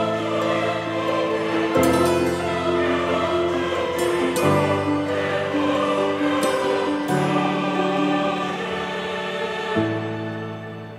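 Background music with sustained choir-like singing over held chords that change about every two and a half to three seconds.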